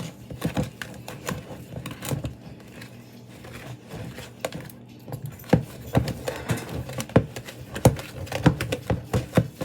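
A whisk knocking and scraping against a mixing bowl while brownie batter is stirred by hand: irregular sharp clicks, coming faster and louder from about halfway through.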